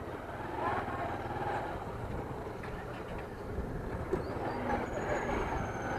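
Small motorcycle engine running as the bike pulls away and rides along a street, with road and wind noise, growing a little louder as it gathers speed.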